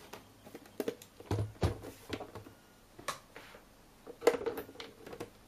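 Plastic projector casing knocking and clicking on a wooden desk as it is handled and turned over, a series of separate taps and knocks with a duller thud about one and a half seconds in and the loudest knock about four seconds in.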